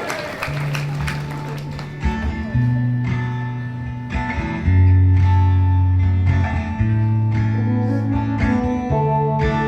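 Guitar playing a slow instrumental intro, held chords and bass notes changing every second or two.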